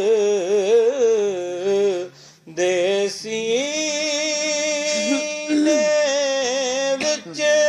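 A male voice singing a Punjabi naat, drawing out long held notes with wavering ornaments between the lines of the verse. There is a brief break about two seconds in.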